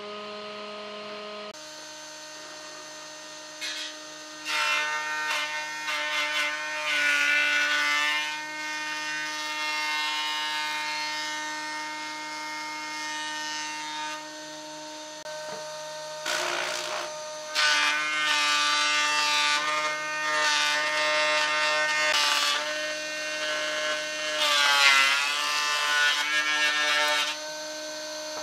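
Combination woodworking machine (jointer-planer with table saw) running with a steady motor hum, just after being switched on. Several times it gets louder and rougher as wood passes the cutters.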